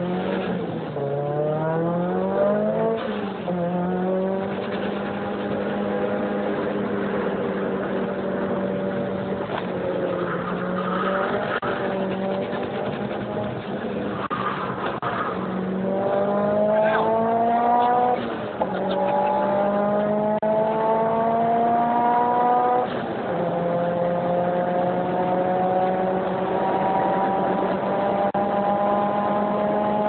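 Mitsubishi Lancer Evolution's turbocharged four-cylinder engine heard from inside the cabin under hard acceleration: the engine note climbs in pitch in each gear and drops back at each upshift, several times, the climb growing slower in the higher gears.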